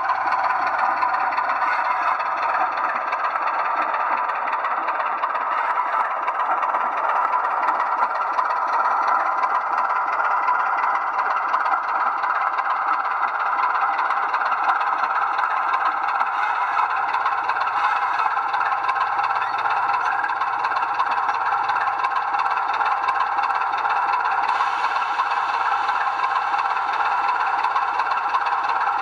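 A 00 gauge model train running steadily along the track, its motor and wheels giving a continuous rattling hum.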